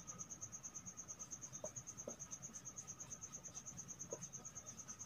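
A cricket calling faintly: a steady, high-pitched pulsing, about a dozen pulses a second. A few short, faint squeaks of a marker writing on a whiteboard.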